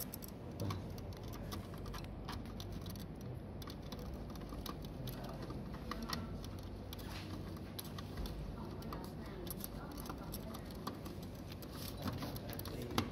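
Scattered light clicks and taps of pin-terminal test leads and a screwdriver being handled at a plastic terminal block, over a steady low hum.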